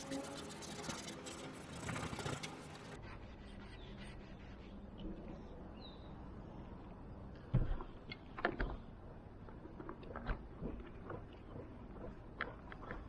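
Scattered knocks and rubbing from wiping down a van roof with a damp cloth and shifting on the roof panels, over a steady hiss and low hum in the first few seconds.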